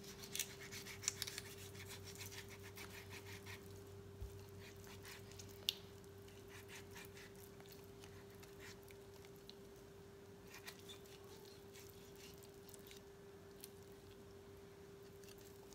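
Knife cutting through raw chicken skin, membrane and hip joint as a leg quarter is taken off a whole carcass: faint, scattered wet clicks and crackles, busiest in the first few seconds, over a steady low hum.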